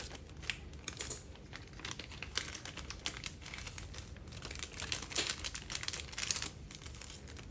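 Quiet handling noises of small carburetor parts: irregular light clicks and ticks with a soft rustle of packaging, over a low steady hum.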